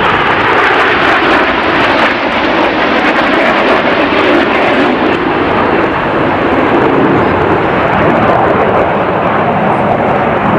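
Several BAE Hawk jet trainers, each with a single Rolls-Royce Turbomeca Adour turbofan, flying past in close formation: a loud, steady jet rush that holds without a break.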